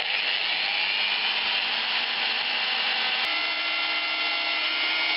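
Electric drill running steadily with a whine while boring small holes with a 2 mm bit; a click about three seconds in and its pitch shifts slightly.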